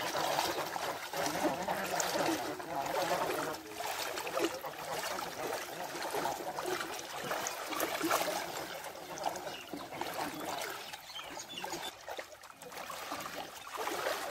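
Legs wading through knee-deep water, the water sloshing and splashing irregularly with each step.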